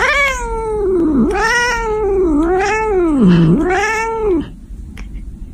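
Cat yowling in one long, wavering angry complaint that rises and falls in pitch several times and stops about four and a half seconds in: a cat's protest at having its head petted.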